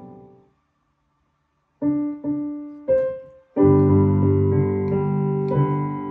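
Digital piano: a chord dies away, then after a brief silence three single notes are played one after another, followed about three and a half seconds in by a full two-handed chord that is held, its upper notes shifting near the end.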